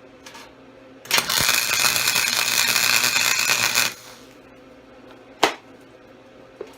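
Electric arc welder laying a tack weld on steel: a steady crackling hiss that starts about a second in and cuts off after about three seconds. A single sharp knock follows a little later.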